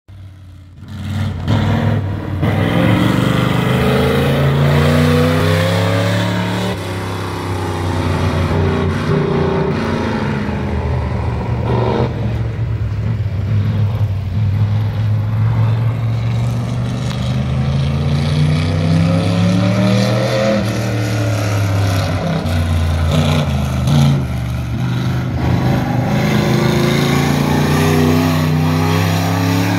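Dirt-track modified race car's engine lapping a dirt oval: it revs up along the straights and drops off into the turns, over and over. It comes in about a second in and stays loud from then on.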